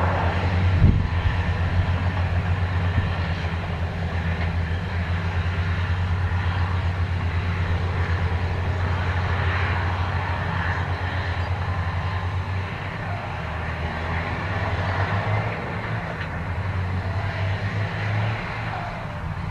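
Caterpillar 657G wheel tractor-scraper's diesel engines running hard under load as the bowl cuts and fills with topsoil, a steady low throbbing drone. The engine note eases a little about two-thirds of the way through, then picks up again.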